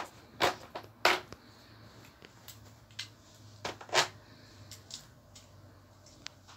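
Small plastic toy screws and parts knocking and clicking against a plastic toy workbench as they are handled, a handful of sharp irregular knocks.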